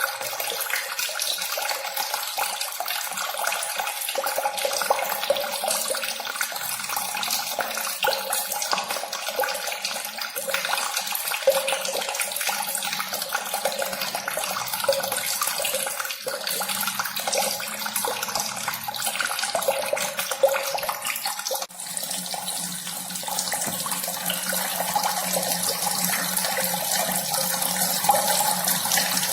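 Steady running, splashing water, like a small fountain or trickling stream, with a brief dip about two-thirds of the way through, after which it runs on in a slightly different tone.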